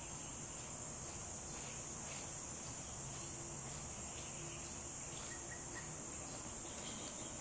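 Insects chirring in a steady, high-pitched drone that does not let up.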